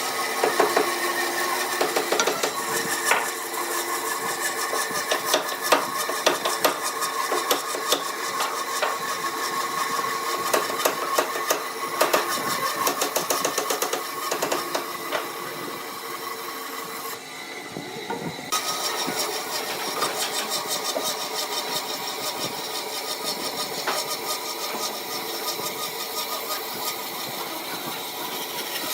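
Wood lathe running with a turning tool cutting into the spinning wood: a steady motor tone under dense scraping and rapid ticking. The cutting noise thins out briefly about two thirds of the way through, then resumes.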